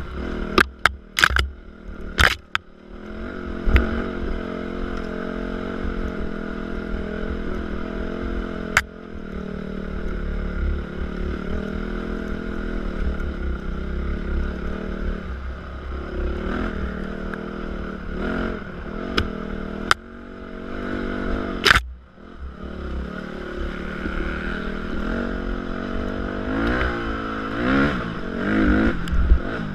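Dirt bike engine running under changing throttle on a rough single-track trail, revs rising and falling, with several quick blips near the end. Sharp knocks and cracks cut through it, several in the first few seconds and the loudest about twenty-two seconds in.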